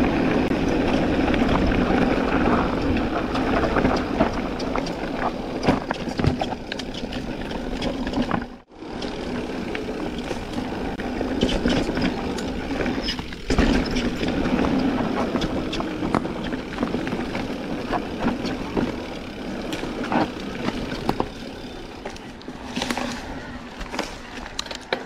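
Mountain bike ridden on a dirt trail: a continuous rumble with many small rattles and knocks from the bike, breaking off for a moment about eight and a half seconds in.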